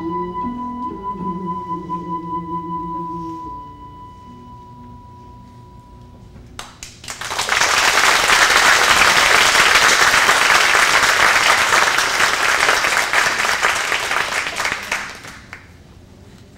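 Closing notes of a đàn bầu duet (Vietnamese monochord with a bass monochord), ending about three and a half seconds in, with a steady high tone ringing on for a few seconds more. Then audience applause for about eight seconds, fading away near the end.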